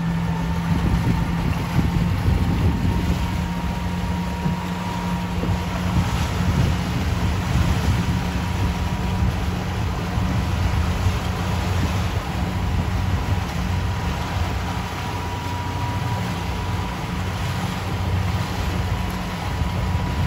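Motorboat engine running steadily under way, a low drone with a thin steady whine above it, with wind buffeting the microphone.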